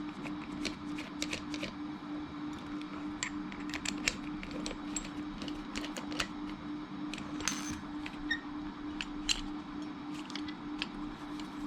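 Irregular small metallic clicks and taps from a hand drill being handled while a screwdriver bit is fitted into its chuck.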